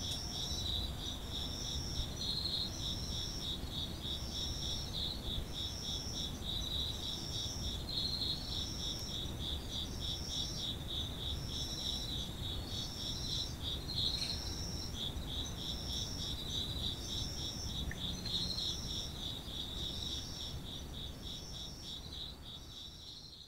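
Chorus of Japanese autumn crickets: one kind keeps up a steady, rapid trill while another adds a higher chirp about once a second, over a low background rumble. The chorus fades out near the end.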